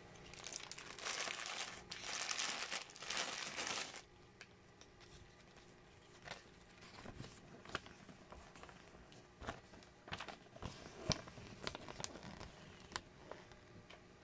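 Clear plastic bags of building-brick pieces crinkling loudly for about four seconds as they are handled, then quieter rustling with a scatter of light clicks from the bagged pieces.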